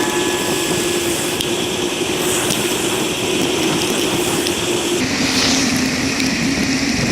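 Wind rush and road noise on a bicycle-mounted GoPro Hero 3 while cycling, with a steady droning hum that drops a little in pitch about five seconds in.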